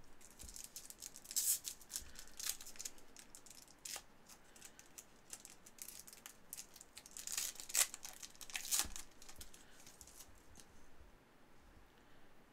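Cardboard trading cards being handled and shuffled: a string of short papery scrapes and clicks, with louder rustles about a second and a half in and twice more near the end.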